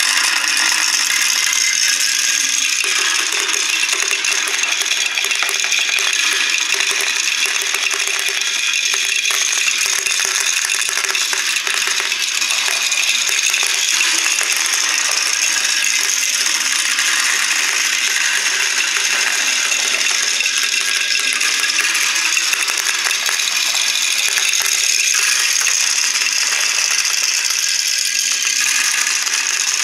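Many small plastic balls rolling and clattering through a Kumon Kumi-kumi Slope marble run, spinning round plastic spiral funnels and dropping down a zigzag of plastic chutes. The clatter is a dense, steady rattle of countless small clicks that never lets up.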